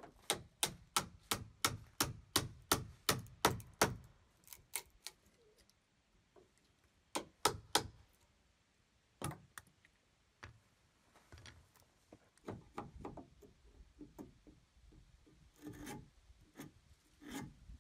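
Hand chisel scraping and paring a hewn log's surface along the edge of a trim board, cutting the log back so the trim sits flat. A quick run of sharp scraping strokes, about three or four a second, for the first four seconds, then scattered strokes and softer scraping.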